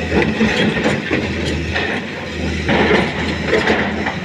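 Excavator at work: its diesel engine running with a steady low hum under irregular metallic clanking and grinding.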